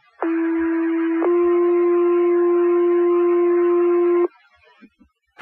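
Two-tone sequential fire pager alert over the dispatch radio: a steady low tone for about a second, then a slightly higher tone held about three seconds, cut off abruptly. It is the page tone that sets off the volunteer firefighters' pagers, followed near the end by a sharp radio click.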